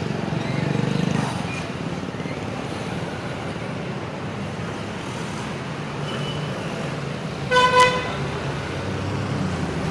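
Street traffic with vehicle engines running steadily, swelling briefly as a vehicle passes about a second in. A vehicle horn honks in two quick blasts about three quarters of the way through.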